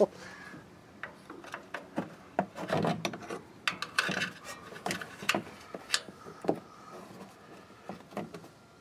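Irregular light metallic clicks, taps and brief scrapes from a screwdriver and hands worked against the front brake and hub parts behind the rotor, prying at retainer clips.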